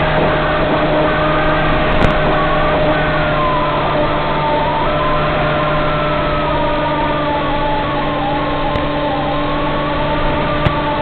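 Small electric motor and propeller of an FPV flying wing running at steady part throttle, a constant drone with a higher whine that slowly wavers in pitch, over a rush of noise. There is a sharp click about two seconds in and another near the end.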